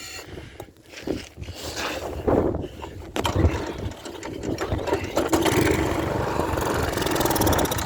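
Pressure washer's small gas engine, fed ether, sputtering and firing unevenly, then picking up and running more steadily from about five seconds in.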